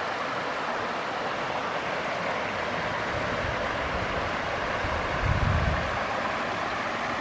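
Steady rushing hiss of a shallow stream flowing over rocks, with a brief low rumble of wind on the microphone a little past five seconds in.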